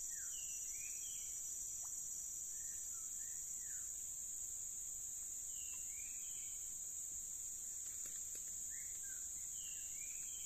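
Steady high-pitched drone of insects, with a bird giving short clusters of rising and falling calls every few seconds.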